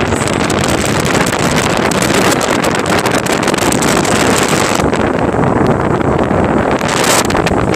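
Boat running through heavy seas: a loud, steady wash of engine, wind on the microphone and waves. The high hiss eases for a couple of seconds after the middle, then a brief hissing rush comes near the end.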